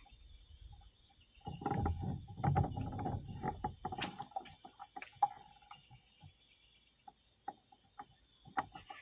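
Spinning fishing reel being wound after a cast from a kayak: a busy run of clicking and rattling about a second and a half in, then scattered sharp clicks and knocks.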